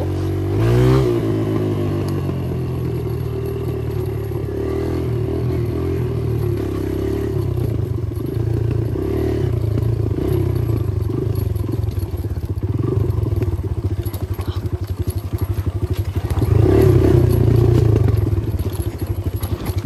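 Kawasaki dirt bike engine running under way, its exhaust open with no baffle in the silencer. A brief rev about a second in, and the engine gets louder for a couple of seconds near the end.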